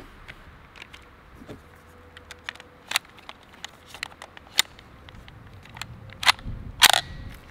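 A 9mm KRISS Vector carbine being handled and readied to fire: a string of sharp metallic clicks and clacks as a magazine goes in and the action is worked, with two loudest clacks near the end.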